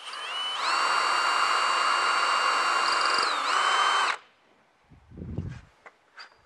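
Cordless drill boring a pilot hole into wood: the motor whines up to speed, runs steadily for about three seconds with a brief wobble in pitch, and stops about four seconds in. A dull thump follows about a second later.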